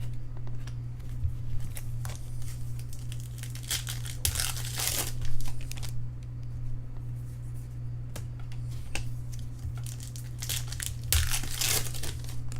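Foil wrappers of baseball card packs being torn open and crumpled, with two louder bursts of crinkling about four seconds in and near the end, over a steady low hum.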